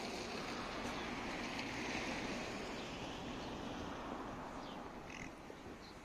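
Street traffic: a passing car's steady rushing noise that swells for a couple of seconds and fades away, with a few short bird chirps near the end.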